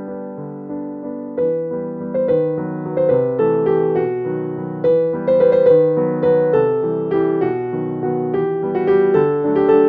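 Background piano music: a melody of struck notes, each fading after it is played.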